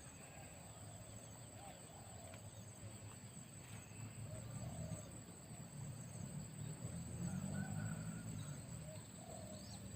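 Faint outdoor background: scattered faint bird chirps over a steady high insect-like tone, with a low rumble swelling in the middle.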